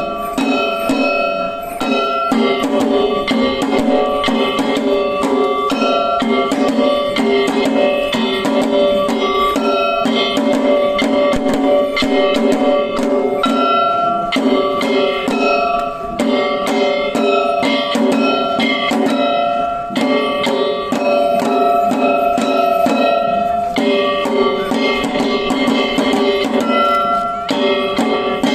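Shishimai lion-dance music: drums struck in a fast, continuous rhythm under held pitched notes that move between a few tones.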